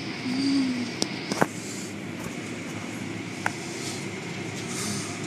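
Automatic car wash heard from inside the car: a steady rush of spray and cloth brushes working over the body and windows, with a few sharp taps.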